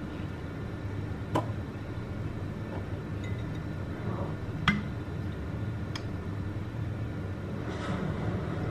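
A glass soy sauce bottle being handled at a counter, giving a few sharp clinks, the loudest about halfway through, over a steady low hum. Near the end comes a soft splash as the soy sauce is poured into a ceramic bowl.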